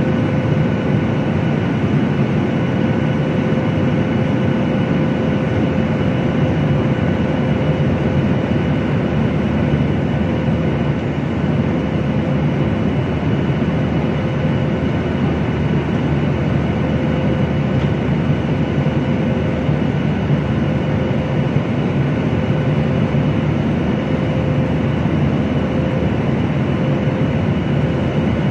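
Steady jet engine and airflow noise heard inside the cabin of a Boeing 737 at cruise: a constant deep rush with a few faint steady tones running through it.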